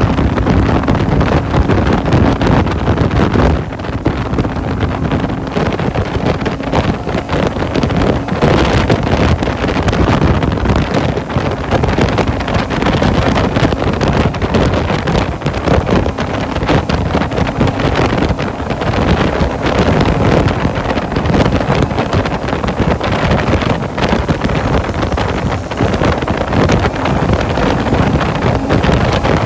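Heavy wind buffeting the microphone while riding a Lifan Lycan V16 fuel-injected V-twin cruiser motorcycle at road speed, with a steady engine note underneath.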